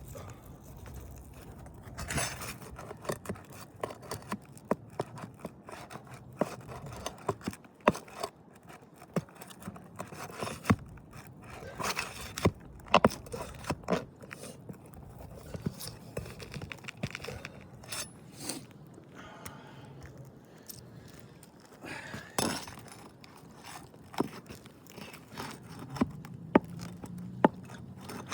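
Scraping and irregular sharp clicks and knocks of a flat bar working under asphalt roof shingles to pry out roofing nails.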